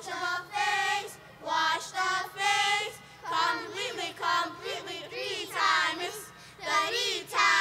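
Young children singing together in unison, in short high-pitched phrases with brief gaps between them.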